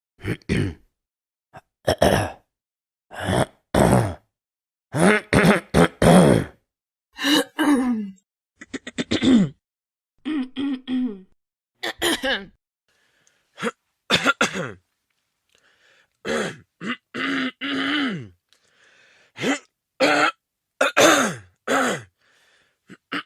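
A string of separate throat clearings and short coughs from different people, a dozen or more in turn with brief silences between. Many are voiced, gruff "ahem"-like clearings whose pitch rises and falls; others are short, harsh coughs.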